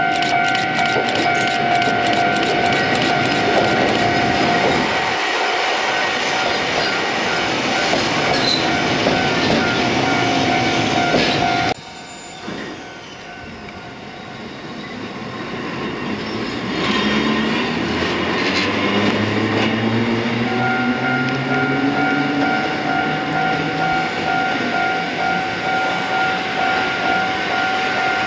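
Japanese level-crossing warning bell ringing with a steady two-tone note as an old electric railcar approaches. After a sudden cut, the Taisho-era railcar's traction motors whine upward in pitch as it pulls away, and the crossing bell starts ringing again about 20 seconds in.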